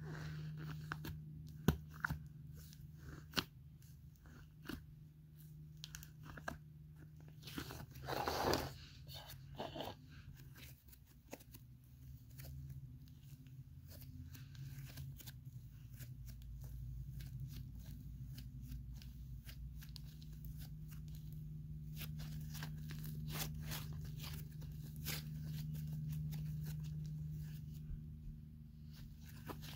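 Thick blackberry-marble slime being stretched and squeezed by hand, giving off the fizzy crackle of many small pops known as 'sizzle'. A louder rush of crackling comes about eight seconds in, and the crackling grows denser near the end.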